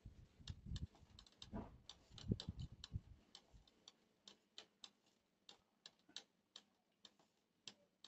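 Faint, wet clicking of eating by hand: fingers mashing rice with a prawn and kharkol leaf paste on a plate, a few clicks a second. Soft low thumps in the first three seconds.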